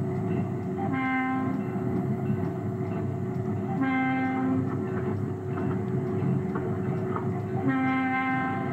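Diesel switch engine's air horn sounding three blasts of under a second each, about three seconds apart, over the steady running noise of the locomotive rolling along.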